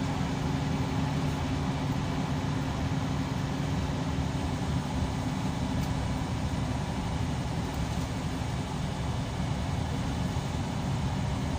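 Scania K340EB coach's diesel engine running, a steady drone heard from inside the passenger cabin.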